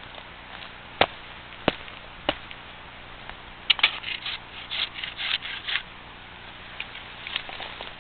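Hand saw cutting through a downed cedar log: three sharp clicks, then about halfway in a quick run of short back-and-forth saw strokes, with a few fainter strokes near the end.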